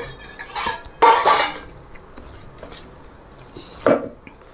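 Stainless steel plates and a steel bowl clattering and scraping on a tabletop as rice and curry are mixed by hand, loudest about a second in, with another short clink near the end.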